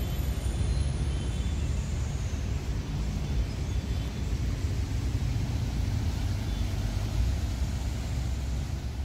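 Steady low outdoor rumble of background noise, with no distinct events.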